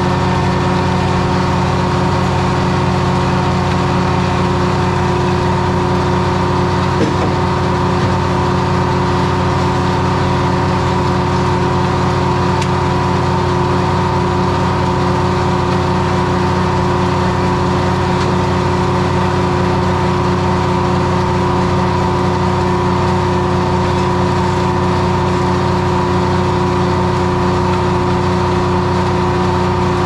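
Detroit Diesel 3-71 three-cylinder two-stroke diesel power unit running at a steady speed, with no change in pitch. A single brief knock comes about seven seconds in.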